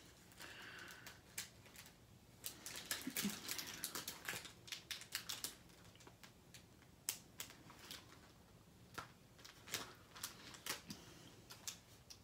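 Faint, irregular clicking and crackling of the clear plastic cover film on a diamond painting canvas as it is handled and lifted off the glued canvas by hand.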